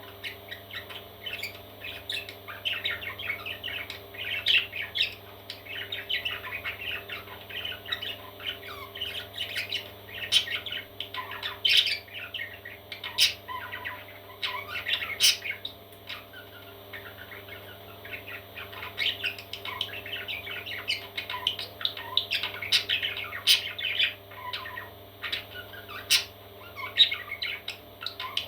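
Parrot chicks calling in a dense, continuous chatter of short squawks and chirps, with a brief lull past the middle and a few sharp clicks among the calls.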